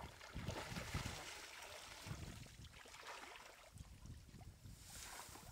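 Faint, irregular sloshing and splashing of shallow water, with soft low thumps.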